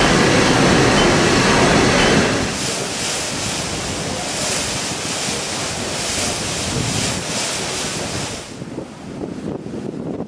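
Dense engine-room noise of a running triple-expansion marine steam engine, cut off abruptly about two seconds in. Then the hiss and splash of white water churning along a ship's hull, with wind gusting on the microphone near the end.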